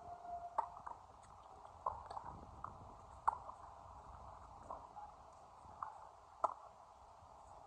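Tennis balls being struck by rackets and bouncing on the court during a rally: a string of sharp knocks, one every second or so, irregularly spaced, the loudest about half a second, three seconds and six and a half seconds in.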